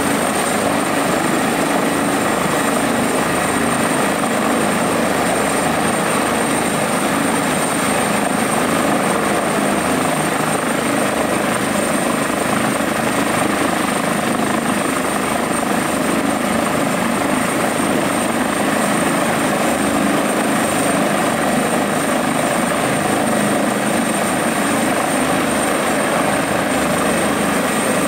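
Airbus Helicopters EC145 T2 running steadily on the ground: the rotor and twin Arriel 2E turboshaft engines, with a thin steady high turbine whine over the rotor noise.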